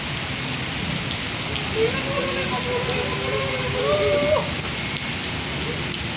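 Heavy rain falling steadily on wet pavement, an even hiss. About two seconds in, a faint wavering pitched sound runs for about two seconds beneath the rain.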